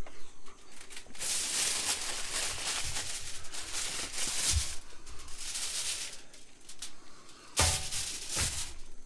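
Heavy-duty aluminum foil crinkling and crackling as it is folded and crimped around a large piece of meat, in one long stretch and a shorter burst near the end.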